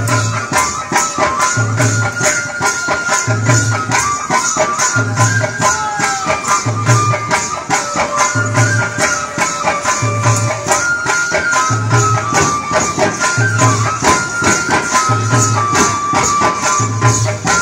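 Rajasthani folk music for the chang dance: large chang frame drums keep a steady beat, a deep stroke about every second and a half under quicker sharp taps, with a melody line stepping from note to note over it.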